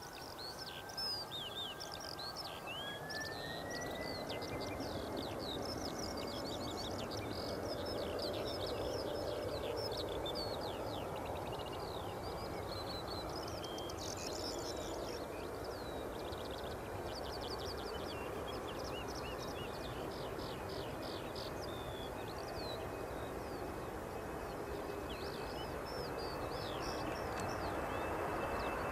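Songbirds singing with quick chirps and trills over the growing rumble of an approaching jet airliner, its engine whine slowly rising in pitch over the first few seconds and then holding steady as the rumble gets louder toward the end.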